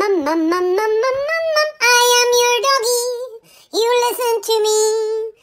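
A high, childlike voice singing in three short phrases, with held notes and sliding pitch, and a brief pause about three and a half seconds in.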